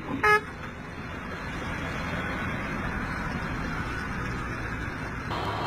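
Steady running of a tipper truck's diesel engine just after its raised trailer has toppled over, with a brief pitched tone just after the start.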